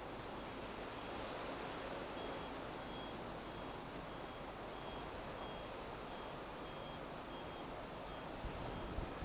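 Steady rush of strong wind and rough sea, with a faint high electronic beep repeating about twice a second: a vehicle's reversing alarm.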